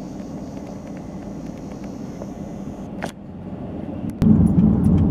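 Steady road and engine rumble of a car driving, heard from inside the moving vehicle, with a single click just after three seconds. About four seconds in the rumble jumps suddenly louder and deeper.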